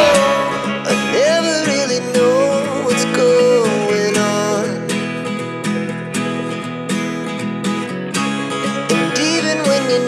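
Background music led by guitar, with a sustained melody line over steady accompaniment.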